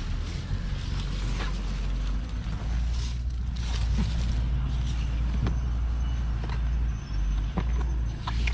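Scattered creaks and crackles as a cantilever concrete form is pressed by hand onto the pool wall and the yellow backing is peeled off its double-sided tape, over a steady low rumble.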